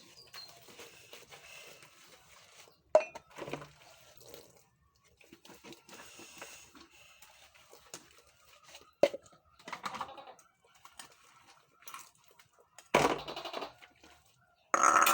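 Dishes and cutlery clattering during hand dish-washing, with a few sharp knocks of items set down or bumped together, the loudest near the end.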